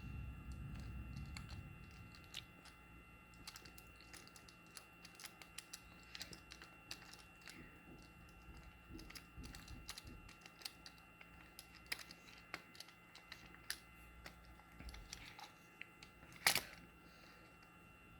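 Light, scattered clicks and taps of plastic parts being handled as a string trimmer's handle assembly is worked apart, with one sharper click near the end. A faint steady high whine runs underneath.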